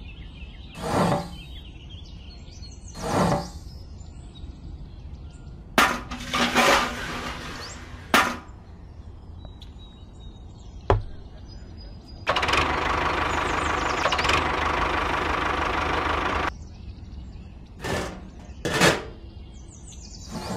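Small electric motor of a toy cement mixer running steadily for about four seconds, starting and cutting off abruptly, after a sharp click. Short knocks and handling noises come before and after it.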